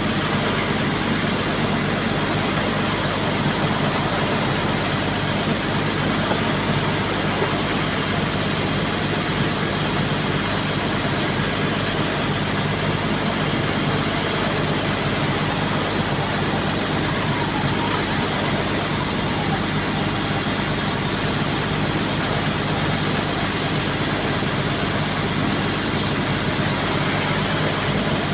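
Heavy diesel engine of a bulldozer running at a steady speed, without revving up or down.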